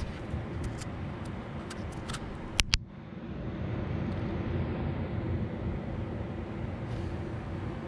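Steady low background rumble, with two sharp clicks close together about two and a half seconds in.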